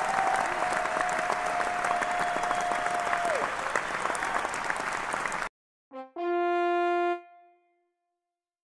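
Stock applause and cheering sound effect, cut off abruptly about five and a half seconds in. After a brief silence comes a short brass stinger: a quick note, then one held note lasting about a second that fades out.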